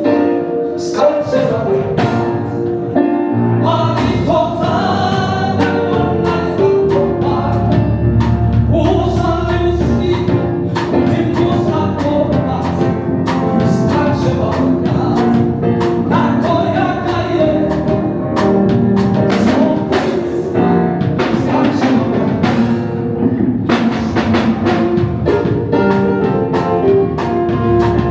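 Gospel music: voices singing over a band with drums keeping a steady beat.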